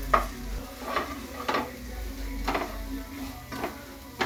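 Metal spoon clinking and scraping against a cooking pot while the contents are stirred. There are about five knocks, unevenly spaced roughly a second apart.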